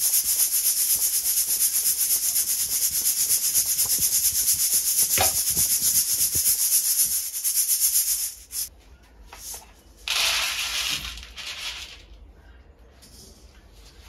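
Freshly roasted coffee beans being shaken and tossed in a stainless-steel mesh colander to cool them and knock off the chaff: a fast, steady rattling hiss that stops about eight seconds in. About two seconds later comes a second, shorter burst of rattling.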